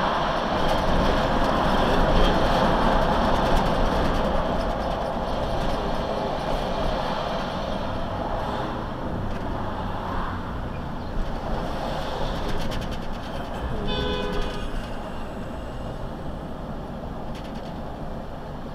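Road and engine noise of a vehicle driving, recorded by a dash cam inside the cab. It is loudest in the first few seconds while passing under a railway overpass, then eases. A horn sounds briefly about fourteen seconds in.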